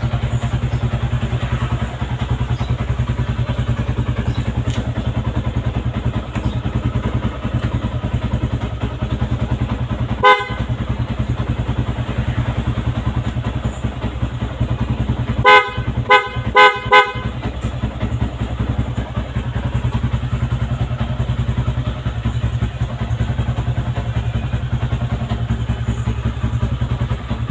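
Yamaha Sniper 150 single-cylinder four-stroke idling steadily through a kalkal (gutted, de-baffled) exhaust pipe, giving a loud, low throb. The horn beeps once about ten seconds in, then four quick times around sixteen to seventeen seconds.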